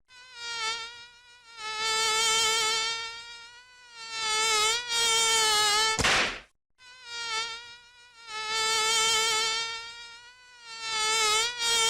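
Mosquito in flight: the high, steady whine of its wingbeats, growing louder and fading again several times as it passes close and moves off. Just after six seconds the whine breaks off briefly with a click, then resumes.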